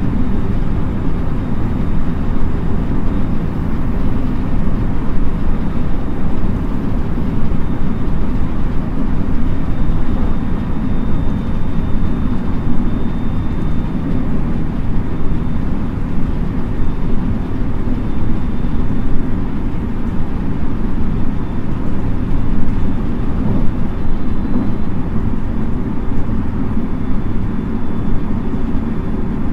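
Running noise inside a JR West 223 series 2000 subseries electric train's motor car, which has a Mitsubishi IGBT VVVF drive: a steady rumble of the wheels and running gear as it runs along. A faint high whine comes and goes over the rumble.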